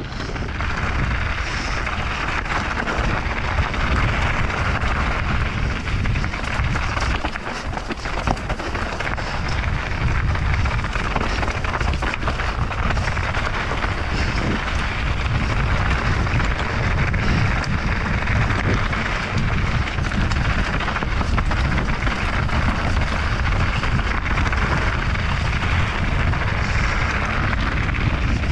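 Mountain bike ride down a dirt trail at speed: a steady rush of wind on the microphone mixed with tyre noise from the ground.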